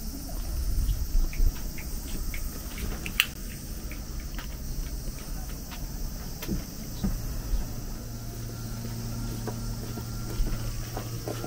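Outdoor summer ambience: a steady high-pitched insect chorus over low rumble, with scattered light clicks. A steady low hum sets in about eight seconds in.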